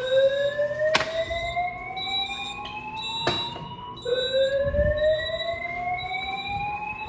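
Fire alarm voice-evacuation speakers sounding the slow whoop tone: a steady upward sweep in pitch lasting about four seconds, which drops back and starts again about four seconds in. Two sharp clicks are heard about one and three seconds in.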